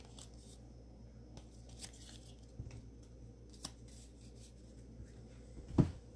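Trading cards and a foil card-pack wrapper being handled: faint scattered rustles and small crinkles, with one sharp knock near the end.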